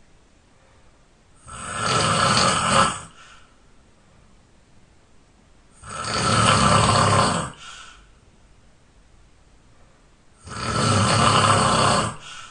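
A sleeping person snoring loudly, three long snores about four and a half seconds apart. Each snore lasts about a second and a half and ends in a short, faint puff of breath.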